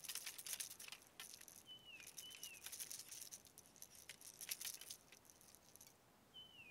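Faint clicking and rattling of ice-fishing rods and spinning reels handled in gloved hands. Twice, a pair of short high chirps falling in pitch: about two seconds in and again at the end.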